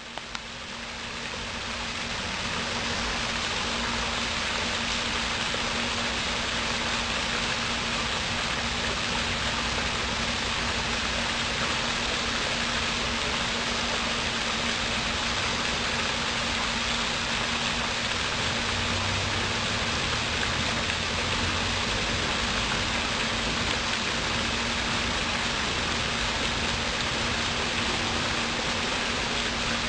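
Steady, even hiss with a low steady hum underneath, fading up over the first two seconds and then holding without a break.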